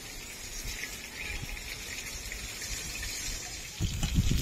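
Koi fish (climbing perch) frying in hot oil in a pan, a steady sizzle with fine crackles. About four seconds in, a strong gust of wind hits the microphone with a loud, buffeting low rumble.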